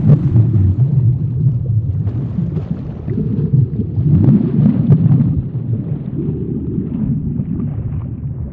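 Underwater ambience sound effect: a loud, low rumbling wash that swells and fades in waves, with a few faint clicks.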